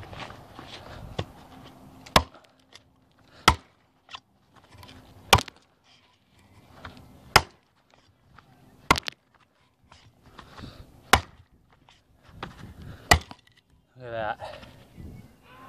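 TOPS El Chete, a quarter-inch-thick 1095 high-carbon steel chopper with a 12-inch blade, chopping into a log: about eight sharp blade strikes into the wood, roughly two seconds apart. Near the end a man's voice calls out briefly.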